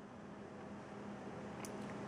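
Quiet room tone: faint even hiss with a low steady hum, and two faint ticks near the end.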